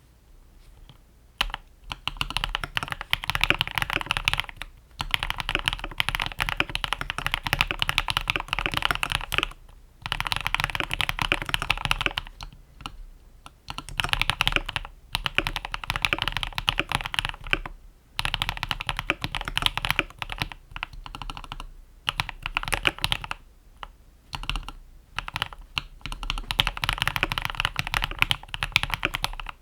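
Typing on a Cox Black Pearl mechanical keyboard with lubed and filmed Akko CS Crystal switches, PE foam, tape and Holee mods, and Cherry-profile PBT keycaps: fast runs of keystrokes broken by short pauses, starting about a second and a half in.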